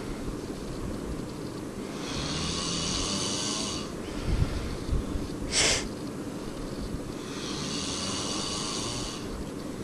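A man snoring, slow drawn-out breaths repeating about every five and a half seconds. A short sharp burst of noise and a few low thumps come about halfway through.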